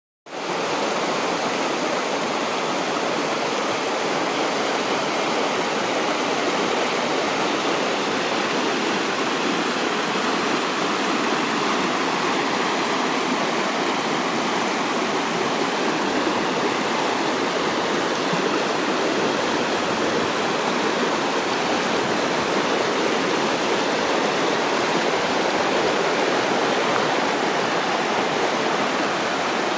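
River water rushing steadily, an even hiss with no breaks; it fades in from silence in the first half second.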